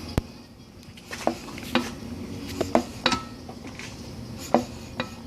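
Irregular metallic clinks and clanks, some ringing briefly, as tools and loose parts are handled on a torn-down engine.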